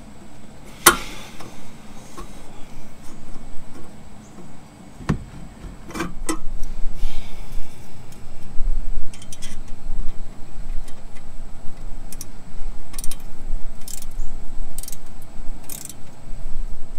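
Stainless exhaust tip being worked onto the tailpipe and its band clamp tightened with a screwdriver: scattered metal clinks and knocks, with a low rumble from about seven seconds in. The tip goes on tight because its slotted end was squeezed closed by the clamp.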